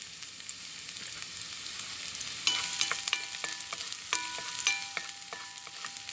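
Chopped garlic sizzling in hot cooking oil in a pan. From about halfway a spatula stirs it, clicking against the pan, and a series of high steady tones comes and goes over the sizzle.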